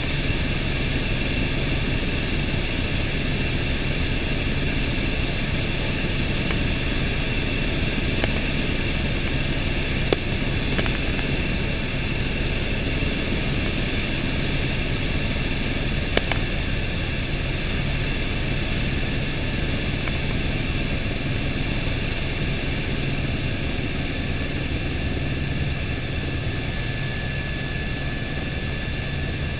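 Helicopter in steady flight, heard from inside the cabin: an even engine and rotor noise with a steady high tone over a low hum. Twice there is a faint click.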